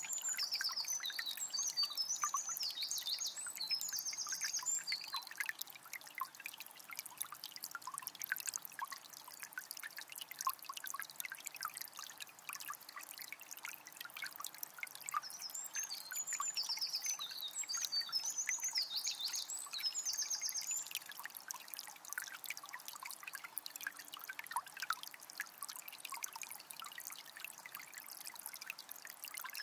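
Shallow forest river trickling steadily. A small bird sings a fast, high, chirping phrase near the start and again about halfway through.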